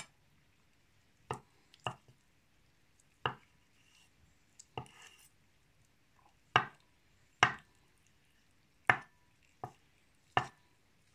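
Kitchen knife chopping boiled eggs on a wooden cutting board. The blade knocks on the board about ten times, separately and unevenly, roughly once a second.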